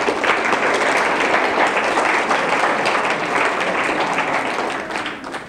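Audience applauding: many hands clapping together, starting suddenly and dying away near the end.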